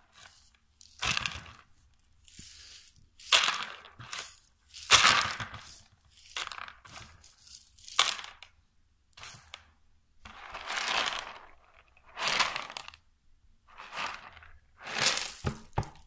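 Dried beans rattling in a dozen or so short bursts, about one a second, each a dry clatter of many small hard grains.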